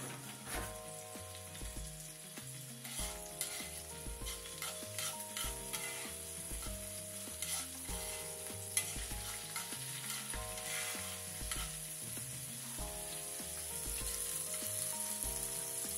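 Eggs frying and sizzling in a skillet while being stirred and scrambled with a utensil, with scrapes and clicks against the pan.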